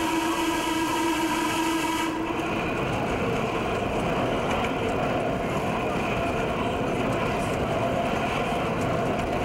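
Broad Street subway train: a horn-like pitched tone sounds for the first two seconds and cuts off sharply, over the steady running rumble of the train.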